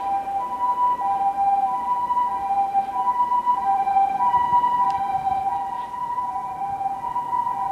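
Electronic railway level crossing alarms ringing: two steady tones of slightly different pitch sound together and overlap without let-up.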